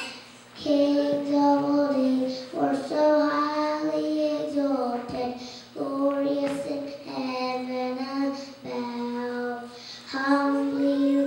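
A young boy singing solo into a microphone, in long held phrases with short breaks between them.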